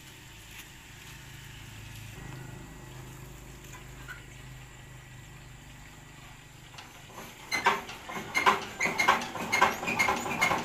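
Small diesel engine being hand-cranked and firing up. A faint low hum at first, then from about seven and a half seconds in a loud, rapid, uneven knocking clatter as the engine turns over and catches.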